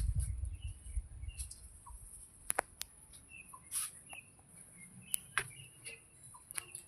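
Short, scattered bird chirps over a steady high-pitched hiss, with a few sharp clicks and a low rumble that dies away in the first second.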